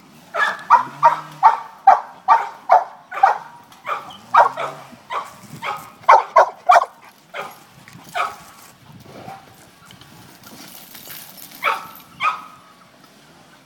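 Pit bull barking repeatedly, about three barks a second for the first several seconds, then slowing to scattered barks, a short lull, and two more barks near the end.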